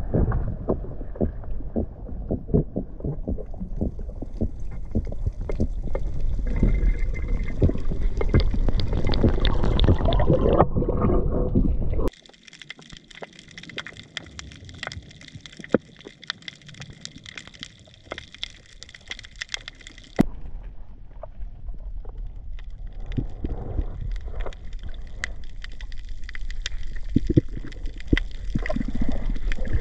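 Underwater water noise: a low rushing and gurgling with a steady crackle of small clicks. About twelve seconds in it drops abruptly to faint crackling, and the rushing returns about twenty seconds in.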